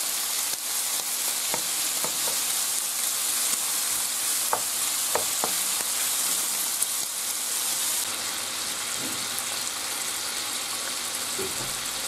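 Diced bacon sizzling in hot olive oil in a frying pan, being fried until crisp. A wooden spatula stirring it scrapes and clicks against the pan now and then.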